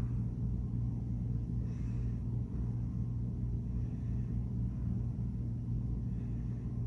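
Steady low hum with rumble underneath, unchanging throughout.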